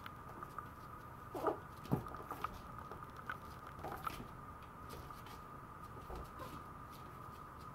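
Maltese puppy's paws and claws tapping and scratching on the tile floor and the plastic pen panel, with a knock about two seconds in and a couple of short, faint whimpers. A steady high tone runs underneath.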